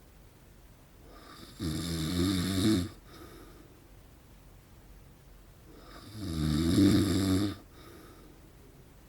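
A man in his forties snoring in his sleep: two loud snores of about a second each, about four and a half seconds apart, with quiet breathing between them.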